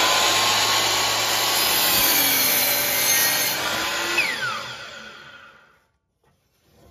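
DeWalt sliding miter saw running as its blade cuts through a 2x4. About four seconds in the motor is switched off and the blade winds down with a falling whine, dying away over the next two seconds.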